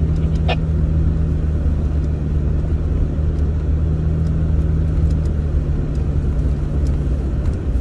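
Vehicle driving along a rough dirt trail, heard from inside the cab: a steady low engine hum with tyre and road noise and a few light ticks. The engine's steady tone drops away shortly before the end.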